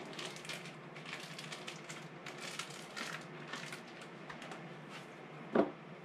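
Knife slicing through a roll of raw pork sausage on a cutting board: a patter of small clicks and scrapes. Near the end come two louder knocks as the sausage goes into a glass canning jar through a canning funnel.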